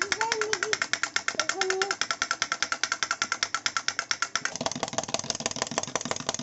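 Battery-operated drumming doll toy beating its small plastic drum: a rapid, regular clicking with a steady ringing tone from its mechanism, with a short electronic tune in the first couple of seconds. About four and a half seconds in, the sound changes to a different, duller clockwork clicking from a wind-up toy chick hopping.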